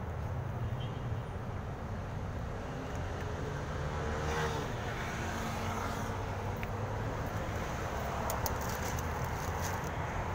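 Street traffic: a steady low rumble of road noise, with a vehicle passing about four to five seconds in, its pitch falling as it goes by.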